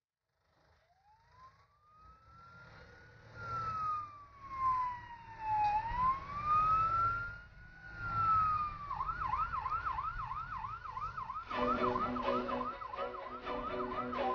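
Ambulance siren: a slow wail rising and falling twice, then switching about nine seconds in to a fast yelp of roughly three to four sweeps a second. Music comes in under it near the end.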